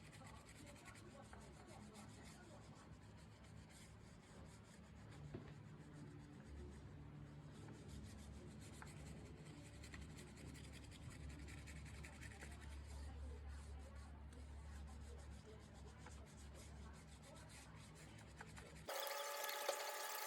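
Faint CNC carving machine running, a low hum with light scraping from the cutting bit; the hum grows stronger for a stretch in the middle. About a second before the end a louder, different sound with steady tones cuts in abruptly.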